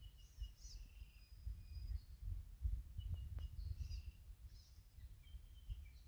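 Several birds singing: long held whistled notes and short swooping phrases, over a gusting low rumble of wind on the microphone.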